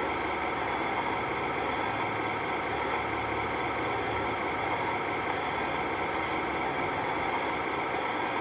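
A steady machine-like hum and hiss that does not change.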